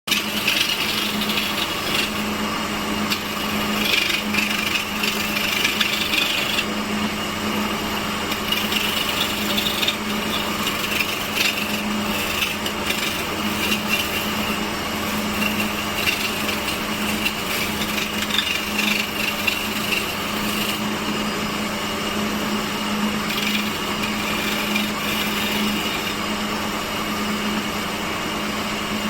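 Electric woodworking machine running steadily with a constant motor hum while it works wood, with a harsher cutting sound during the first several seconds.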